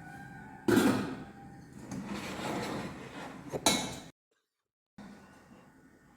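Stainless steel pots and pans being handled and set down: two sharp metallic clanks with a short ring, about three seconds apart, with scraping and shuffling between them. The sound then cuts out completely for about a second before faint room tone returns.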